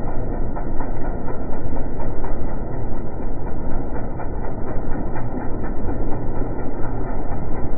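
Steady, loud vehicle running noise with a fast clicking rattle through it.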